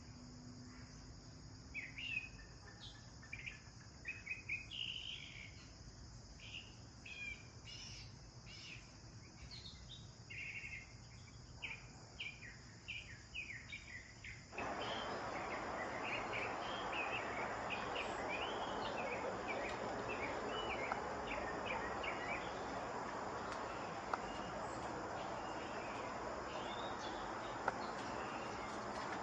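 House sparrows chirping in quick irregular runs of short chirps over a steady high insect drone. About halfway through, a steady rushing noise comes in abruptly and continues under the chirping.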